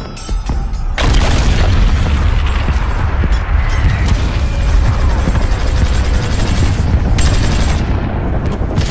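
Cinematic battle sound effects: heavy booms and volleys of gunfire over a deep, continuous rumble, swelling sharply about a second in.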